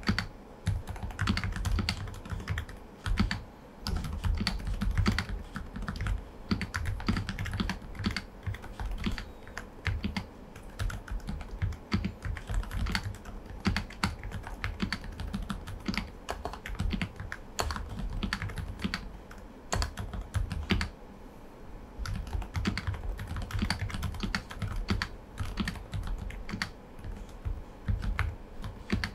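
Typing on an Aula F98 Pro V2 mechanical keyboard fitted with silent switches: a continuous, uneven run of soft keystrokes, each with a low, muffled thud.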